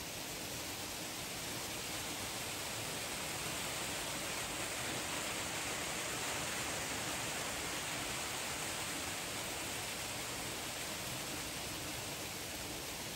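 Steady, even rushing noise without tones or distinct events, swelling slightly around the middle.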